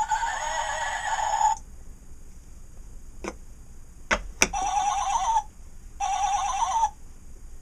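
Wooden barnyard sound puzzle playing recorded animal calls through its small built-in speaker. The horse piece's whinny runs out about a second and a half in. A few sharp wooden knocks follow as the sheep piece is lifted and set back, then two short wavering sheep bleats play.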